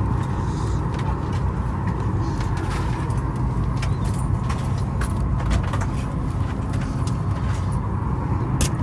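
Steady low rumble and air hiss inside a Boeing 737 MAX 9 airliner cabin, with scattered light clicks and knocks.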